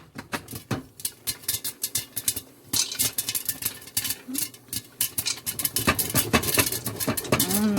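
Popcorn kernels and oil crackling and rattling in a pot on a stovetop, a dense run of irregular clicks over a sizzle. A short hummed "mm" comes in near the end.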